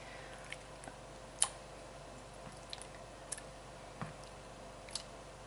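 Scattered light clicks and taps of kitchen utensils, about six spread over a few seconds, over a faint steady hum.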